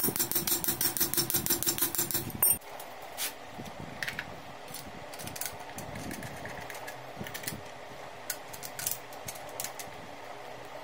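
Rapid, even mechanical clicking over a steady hum from a tool working on the motorcycle's fittings, which stops abruptly after about two and a half seconds. After that a steady fan hum runs on, with scattered light clicks and taps of plastic and metal parts handled as a tail light is fitted.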